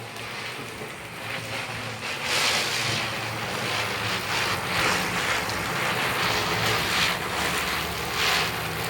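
Wind and rushing water noise that swells every couple of seconds, over a low steady engine hum, as from a boat moving on the water.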